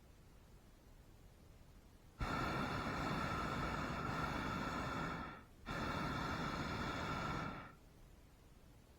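Hot air balloon's propane burner firing in two blasts, the first about three seconds long and the second about two, with a brief break between; each blast starts and stops abruptly.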